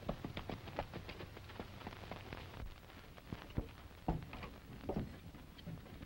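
Horse hooves and footsteps on dirt: scattered, uneven clops and knocks over the low hum of an old film soundtrack.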